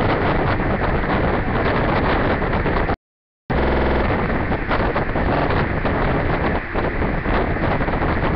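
Loud, steady noise with no speech or music in it, which cuts out to complete silence for about half a second some three seconds in.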